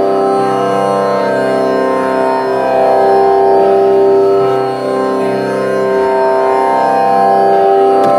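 Indian classical-style instrumental music of long held, steady notes layered over one another, playing as a backing track.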